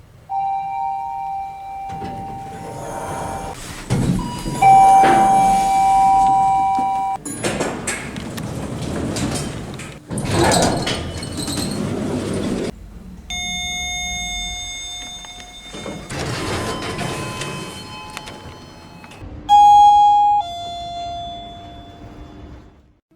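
A series of elevator arrival chimes from different lifts, each a held electronic tone, some sounding two notes together. Near the end comes a falling two-note ding-dong. Between the chimes are short stretches of lift car and door mechanism noise.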